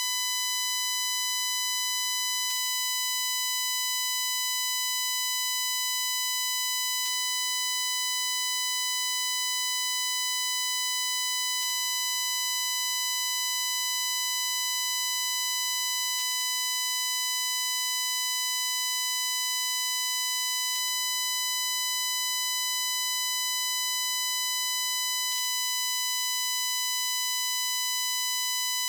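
Recording-glitch buzz from a phone and plug-in microphone: a constant, piercing high-pitched tone near 1 kHz with a dense stack of overtones, unchanging in pitch and level. A faint click comes about every four and a half seconds. The digital fault has replaced the birdsong that was meant to be recorded.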